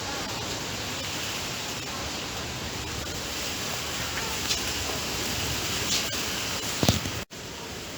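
Steady rain falling, an even rushing hiss. A few sharp clicks come just before seven seconds in, and the sound cuts off abruptly a moment later before resuming.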